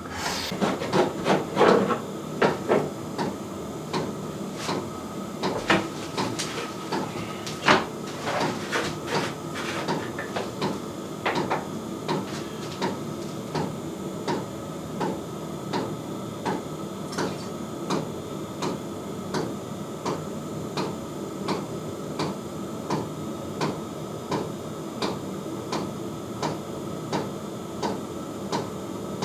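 Water pump knocking in a steady 'tuk-tuk-tuk' rhythm of about one and a half knocks a second. For the first dozen seconds it is mixed with louder irregular knocks and clatter from handling.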